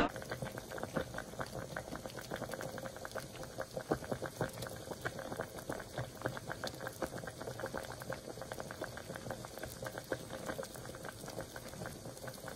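Faint, dense crackling and popping like bubbling liquid: many tiny irregular clicks a second over a light hiss.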